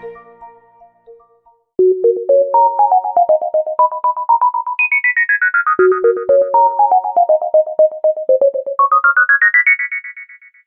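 Smartphone ringtone: a synthesized melody of rapidly repeated short notes running up and down in pitch, starting about two seconds in. The phrase begins a second time about six seconds in and ends on a higher climb.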